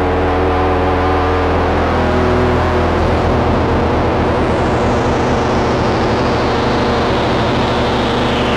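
Prophet Rev2 synthesizer holding a dense, distorted chord through the Drolo Giant Hogweed and Dreadbox Kinematic pedals. About halfway through, the bass starts to flutter quickly, and the tone darkens in a slow downward filter sweep as the Kinematic's filter knob is turned.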